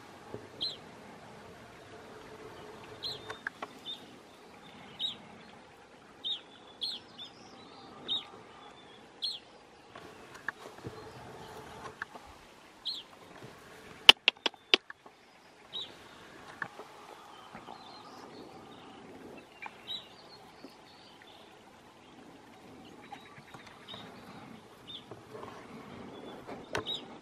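A small bird calling over and over with short, high chirps, one every second or two. About halfway through there is a quick run of sharp clicks, the loudest sound here.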